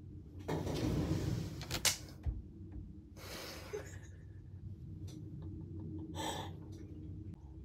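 A young woman gasping and breathing out hard in shocked surprise, with two sharp knocks about two seconds in, another breathy gasp a second later, and a short voiced outburst near the end.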